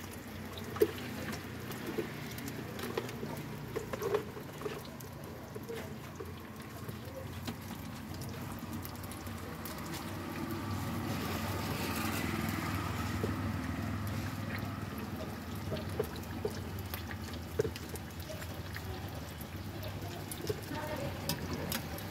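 Street-food stall background: a steady low hum with scattered clicks and clinks, a little louder for a few seconds midway.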